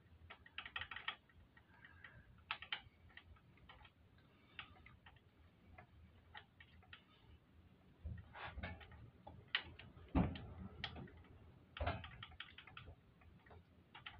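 Faint, irregular metallic clicks and taps of a tappet (lifter) being worked by hand into its tappet block in a motorcycle V-twin's cam area, with a few heavier knocks in the second half.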